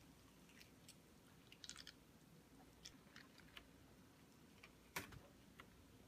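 Faint chewing and crunching of a McDonald's crispy breaded chicken sandwich being eaten, with scattered small crunches. A sharper click comes about five seconds in.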